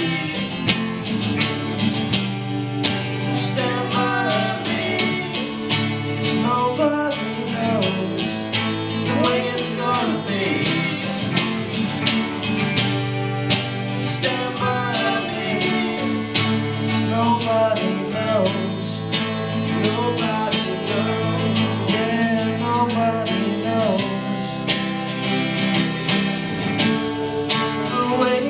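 Music led by guitar, strummed and plucked, playing continuously.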